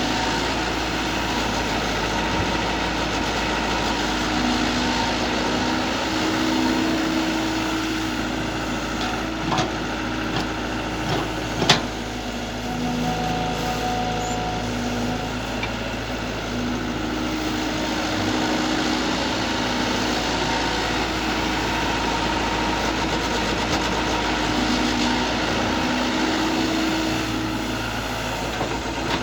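Mini excavator working, its engine running steadily with held tones that shift now and then, and a few sharp clanks near the middle, the loudest about twelve seconds in.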